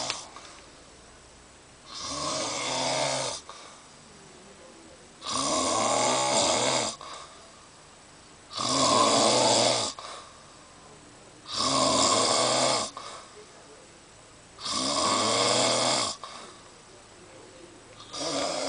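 A pet snoring in its sleep: five long snores, one about every three seconds, with quiet breathing gaps between them.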